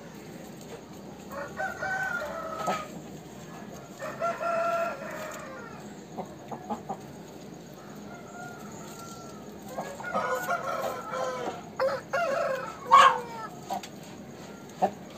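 Aseel rooster giving several short calls, crowing and clucking, the loudest near the end, with a few sharp clicks between the calls.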